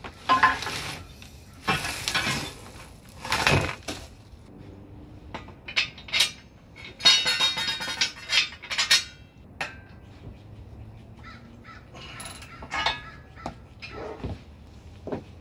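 Steel frame of a 6-ton hydraulic shop press knocking and clanking as it is handled and tipped onto its side during assembly, with a ringing metal clatter about seven to nine seconds in.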